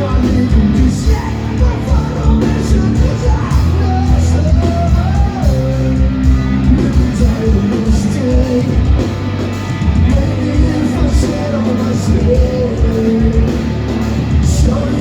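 Rock band playing live and loud in a large hall, with drums and a sung vocal line over the band, heard from the audience.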